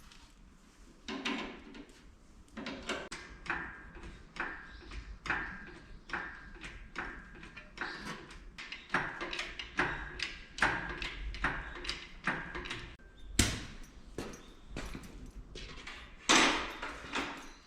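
A string of irregular metallic knocks and clanks, about one or two a second, some with a short ringing tone; the sharpest comes near the end.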